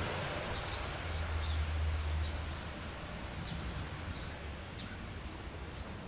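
Outdoor ambience picked up by a phone propped inside a window: an even hiss with a low rumble that swells about a second in and eases off after about two more, and faint short high chirps of small birds scattered through it.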